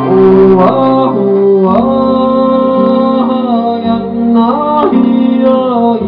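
Live acoustic folk song: a male voice sings long held notes that slide up into new pitches, over acoustic guitar and a steady sustained keyboard chord.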